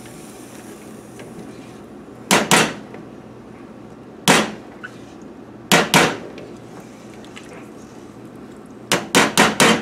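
Spatula knocking against the rim and sides of an enamelled stockpot while the pot is scraped down: a pair of sharp knocks, a single one, another pair, then a quick run of four or five taps near the end.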